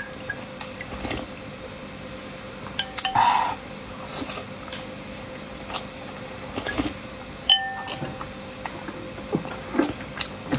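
Metal spoon clinking and scraping against a ceramic bowl, with slurped sips of spicy broth from the spoon. One clink, a little past halfway, rings briefly.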